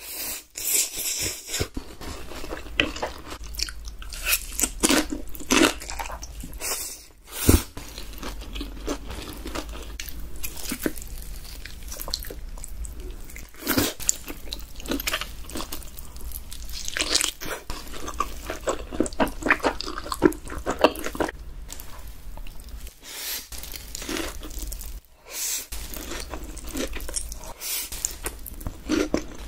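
Close-miked eating sounds: slurping and chewing black bean noodles, and biting and chewing a glazed roast chicken leg, with many quick, irregular wet clicks and smacks.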